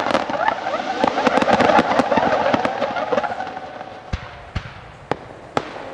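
Daylight fireworks: a barrage of shells bursting with many overlapping whistling effects and sharp cracks. The whistling fades out about three seconds in, leaving a few separate loud bangs about half a second apart.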